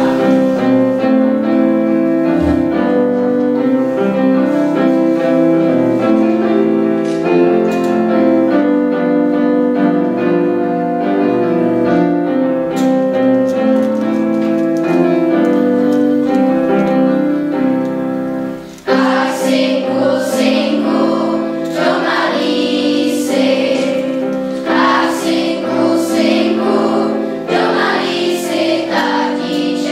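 Children's choir singing with electric keyboard accompaniment. The keyboard plays chords alone at first, and the voices come in about two-thirds of the way through.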